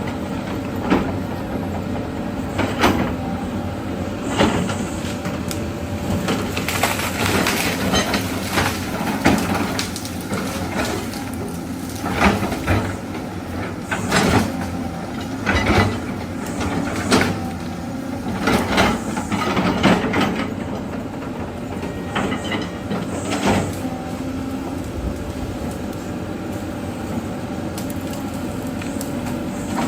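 Diesel engine of heavy tracked earthmoving machinery running steadily, with many sharp clanks and knocks scattered throughout.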